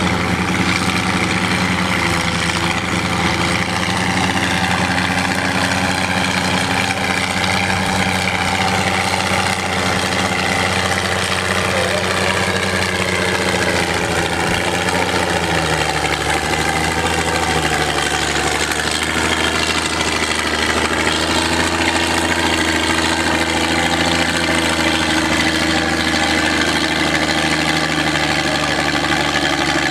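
Oliver 77 farm tractor's six-cylinder engine idling steadily while creeping back to a pulling sled to be hooked on. The engine note shifts lower about halfway through.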